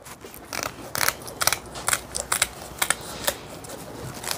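Scissors snipping: a quick, irregular series of about a dozen sharp clicks.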